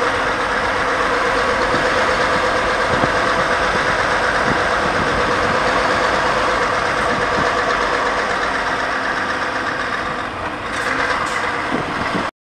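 New-generation Scania truck's diesel engine running steadily, then cutting off suddenly near the end.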